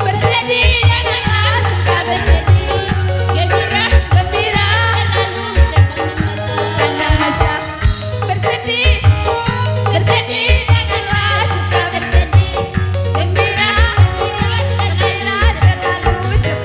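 Dangdut koplo music playing, with a driving drum beat, a heavy bass line and a wavering, ornamented melody line.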